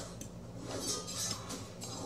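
A spoon clinking and scraping against a bowl of oatmeal a few times, over a steady hum and the sound of a movie playing in another room.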